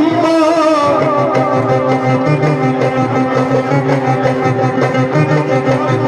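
Live Egyptian Sufi mawlid band playing an instrumental passage: an ornamented melodic line glides for about a second, then settles into steady held notes over a pulsing low accompaniment and an even, quick drum beat.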